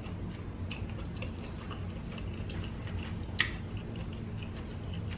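Close-miked eating sounds: soft chewing and lip smacks with small irregular clicks as food is handled, one sharper click about three seconds in, over a low steady hum.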